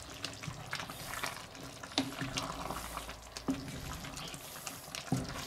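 A wooden spoon stirring a simmering sausage stew in a cast-iron Dutch oven, the liquid sloshing and bubbling, with three sharp knocks of the spoon against the pot, about a second and a half apart.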